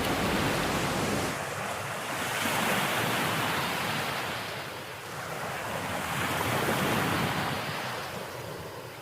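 Ocean waves breaking and washing up on a beach, the surf swelling and fading in surges a few seconds apart. Wind buffets the microphone with a low rumble in the first second or so.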